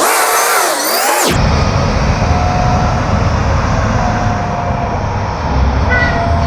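Wheel loaders' diesel engines running steadily as a bucket of sand is tipped out. The sound starts with a brief swooshing transition effect that lasts about a second.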